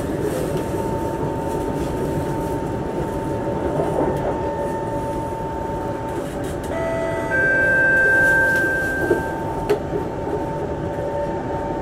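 Singapore MRT train carriage running on the line, heard from inside: a dense steady rumble with a constant whine. A little past the middle, several higher steady tones join in and the sound swells for about two seconds, then settles back.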